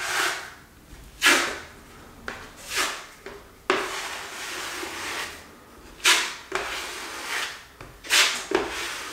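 A flexible steel drywall knife scraping Easifill filler down a plasterboard corner bead, in repeated short strokes with one longer drawn stroke about four seconds in.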